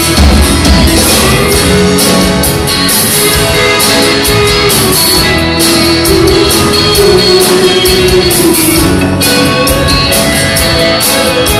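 Live band music from an acoustic guitar, bass and keyboards, with a held melody line on top that bends slowly in pitch.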